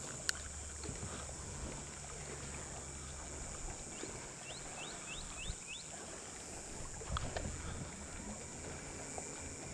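Minn Kota Terrova electric trolling motor humming low, stopping a few seconds in and coming back briefly later. Near the middle, a bird gives five quick rising chirps.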